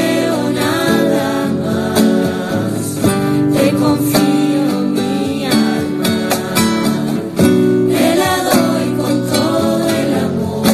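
An offertory hymn: a singing voice accompanied by strummed acoustic guitar.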